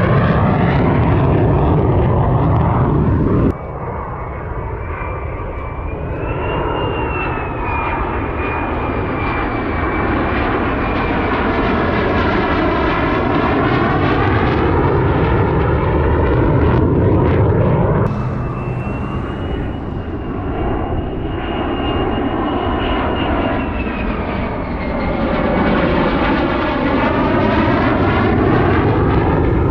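Fighter jet engine on a low landing approach, a loud steady rush with a high whine over it and a slow wavering of tone as the jet passes. The sound changes abruptly twice, about a third and about two thirds of the way through, as separate approaches are cut together.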